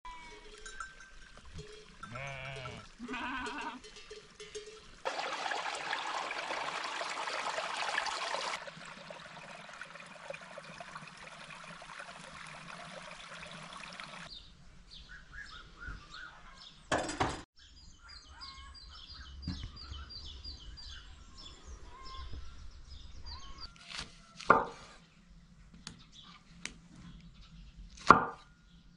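Sheep bleating a few times near the start, followed by a few seconds of steady hissing noise. Near the end come sharp knocks of a cleaver chopping through lemon onto a wooden board.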